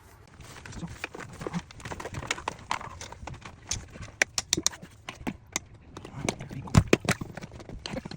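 Irregular clattering: a run of sharp knocks and clicks of varying loudness, with a few heavier thuds in the second half.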